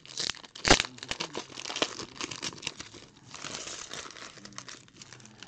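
Foil trading card pack wrappers crinkling and tearing as the packs are handled and opened by hand: a run of quick crackles, the loudest a sharp one a little under a second in.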